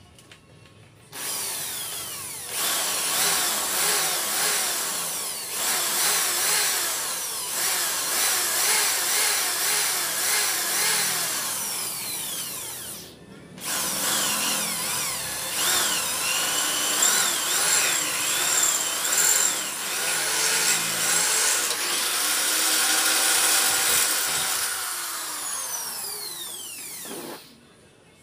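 Handheld electric drill boring holes for saddle-box mounting brackets at a motorcycle's rear, its motor speeding up and slowing down with the trigger. It stops briefly about 13 seconds in, runs again, and winds down with a falling whine near the end.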